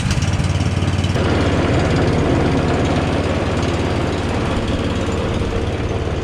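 Honda HSS928A snowblower's single-cylinder engine running steadily, just after starting, with an even low pulsing.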